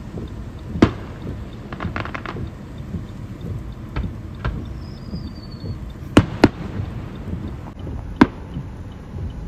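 Aerial fireworks shells bursting: a sharp bang about a second in, then a quick run of crackles, then single bangs. The two loudest bangs come close together about six seconds in, with another near eight. A faint thin whistle sinks slightly in pitch around five seconds, and a steady low rumble runs underneath.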